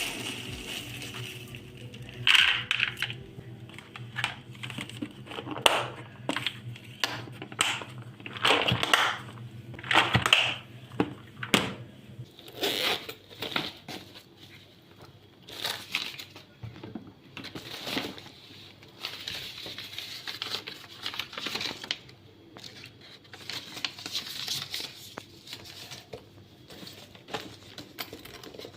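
Household handling sounds: irregular crinkling, scraping and light knocks at uneven intervals.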